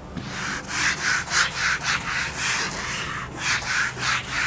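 Whiteboard duster wiping a marker diagram off a whiteboard in quick back-and-forth strokes, about three scratchy rubs a second.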